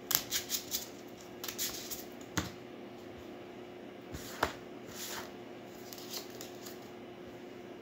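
A deck of tarot cards being shuffled and handled by hand: a quick run of card snaps in the first second, then scattered single clicks and taps of the cards. A faint steady hum lies underneath.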